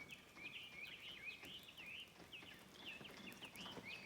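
Faint chirping of small songbirds: a steady run of short, quick notes, about three a second.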